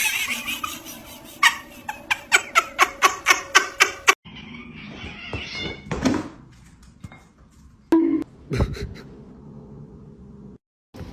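A domestic cat meowing and vocalizing, including a quick run of about a dozen short, sharp sounds, roughly five a second, between about one and a half and four seconds in. The sound cuts off abruptly twice.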